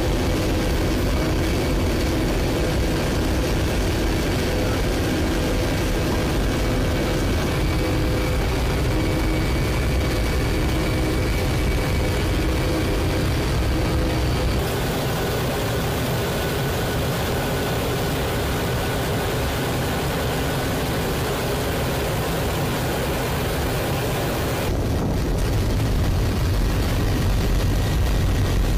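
Steady jet engine and airflow noise inside the cockpit of a C-17 Globemaster III, with a few humming tones in the first half. The character of the noise changes abruptly twice, about halfway through and a few seconds before the end.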